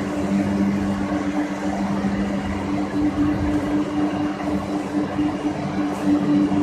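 Pet food extrusion production line machinery running: a steady machine hum with two constant low pitches over an even mechanical noise.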